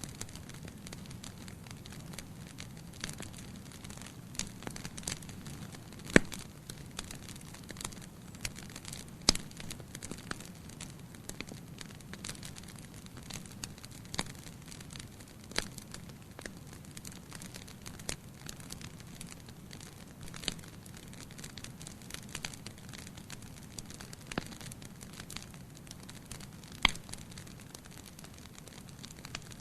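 Bonfire burning with a steady low rumble of flames and scattered sharp crackles and pops of burning wood, the loudest about six, nine and twenty-seven seconds in.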